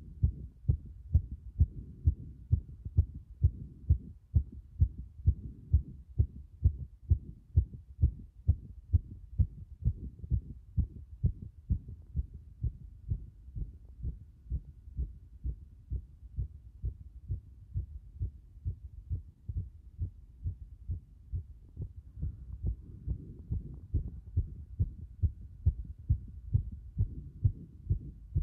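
Fast heartbeat recorded over the cardiac apex: a steady, regular run of dull, low thumps following one another quickly.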